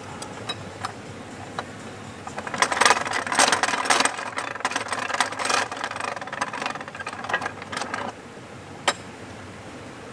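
Canal lock paddle gear being wound with a windlass: the ratchet and pawl clatter rapidly for about five seconds, with a few lone clicks before and one sharp click near the end.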